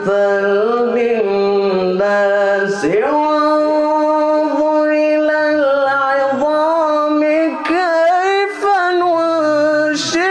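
Solo male voice reciting the Quran in the melodic, drawn-out tajwid style, holding long sustained notes on a vowel. It dips in pitch briefly about three seconds in and moves into quick ornamented turns in the second half.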